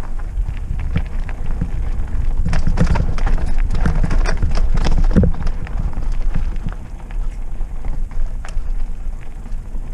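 Trek Roscoe 6 hardtail mountain bike rolling down a dirt singletrack: a steady low tyre rumble with irregular rattling clicks and knocks from the bike over the rough trail, busiest a few seconds in and easing off in the second half.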